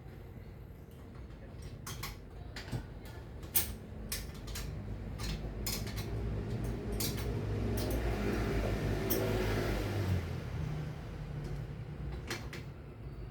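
Scattered light clicks and knocks of objects being handled, with a low rumble that swells up in the middle and fades away again.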